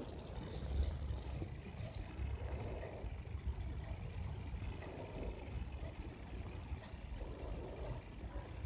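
Faint, low background rumble, fairly steady, with a few soft irregular sounds over it.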